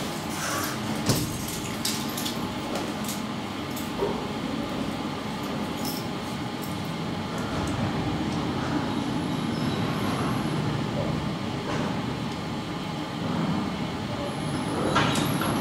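Traction elevator car travelling down its shaft: a steady rumble and hum of the ride, with a few sharp clicks as it sets off and a faint high tone twice later on.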